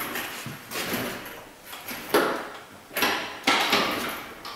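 A run of four or five metallic clanks and knocks, each trailing off in a short ring, the loudest about two seconds in: metal tools or parts being handled.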